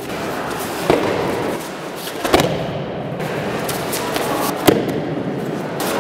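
Three sharp slaps of aikido breakfalls on interlocking foam mats as partners are thrown, over a steady hall ambience.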